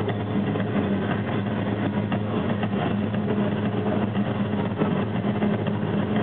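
A loud, steady low hum under a constant wash of noise, with no distinct knocks or other events.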